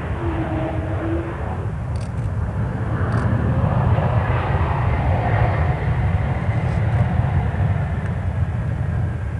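Jet airliner passing, its engines a steady low rumble that grows louder to a peak about four seconds in and then eases slightly.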